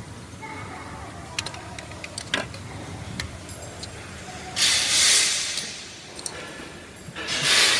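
A few light metallic clicks, then two hissing spray bursts, each about a second long, the second starting near the end.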